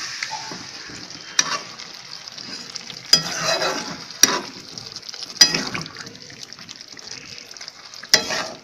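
Metal spatula stirring chicken and potato curry in a black kadai, scraping and knocking against the pan five times, the loudest about five and a half seconds in, over a steady sizzle from the curry, which has just had water added.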